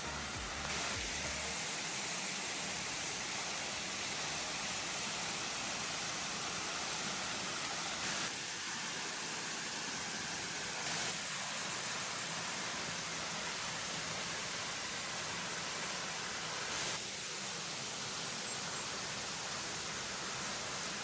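Waterfall's falling water rushing steadily, an even hiss with a few brief louder moments.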